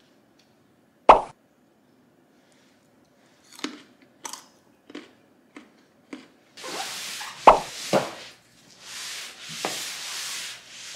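Raw baby carrot snapped off in a crisp, loud bite about a second in, followed by scattered small clicks and crunches.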